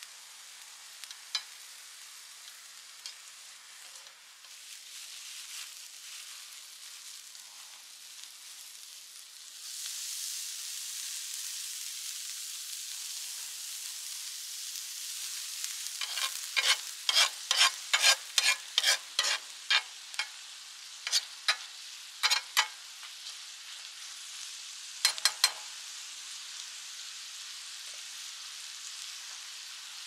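Food sizzling on a Lodge cast-iron round griddle, first diced onion; about ten seconds in the sizzle gets louder as ground meat goes on. From the middle on, a metal spatula scrapes and chops at the meat against the iron in a quick run of strokes, about three a second, with a few more strokes later.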